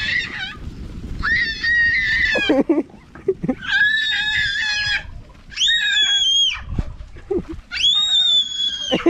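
A young child shrieking, four long high-pitched squeals of about a second each, while chasing sheep; sheep bleat briefly in the gaps.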